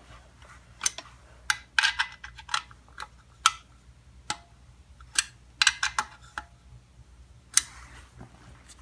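Sharp metallic clicks and taps, some single and some in quick bunches of three to five, from hand tools working the bolts of an aluminium skid plate being tightened onto a dirt bike's frame.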